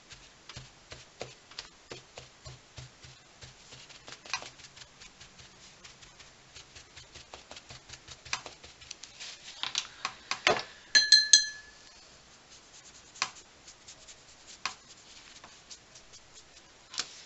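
Rapid soft taps and rubs of a wad of absorbent paper blotting a wet watercolour wash on journal paper, lifting paint to make clouds, for about ten seconds. Then a few loud ringing glass clinks, followed by a few scattered clicks.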